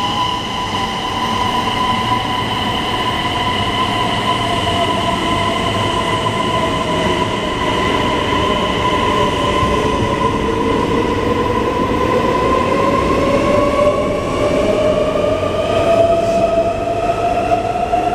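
Traction inverter of an SJ X3000 (X55) electric train whining as it pulls away and accelerates. Several steady high tones sound together with a lower tone that sinks slowly and then climbs steadily through the second half, over a low rumble of the running gear.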